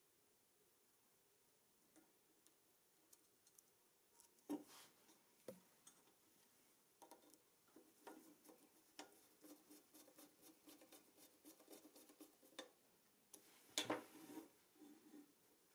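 Small screwdriver turning a screw into the steel steering arm of a toy car's front axle: faint metallic clicks, then a quick run of small ticks and scrapes as the screw is driven. Near the end come a few louder clicks and knocks as the metal chassis is handled.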